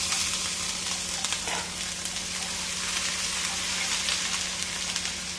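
Ginger-garlic paste sizzling steadily in hot oil with cumin and fennel seeds in a non-stick pan, stirred with a wooden spatula.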